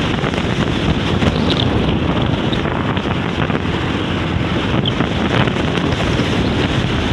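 Strong onshore wind buffeting the microphone in a loud, steady rush, strong enough to lift sand off the beach.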